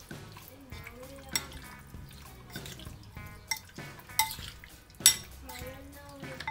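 A metal fork stirring pieces of marinated pork in a ceramic bowl: wet squelching of the meat in its marinade, with several sharp clinks of the fork against the bowl, the loudest about five seconds in.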